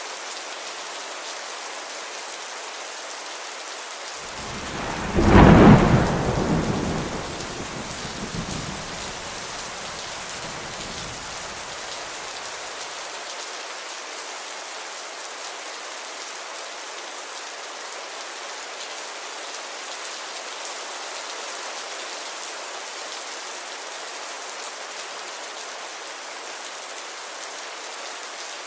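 Steady rain falling, with one peal of thunder: it builds about four seconds in to a loud crack, the loudest thing here, then rumbles away over several seconds.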